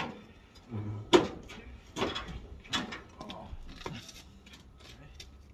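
A series of five or so sharp metal clunks and knocks over about four seconds, the loudest about a second in: a motorcycle being shoved and rocked on a steel car trailer's deck.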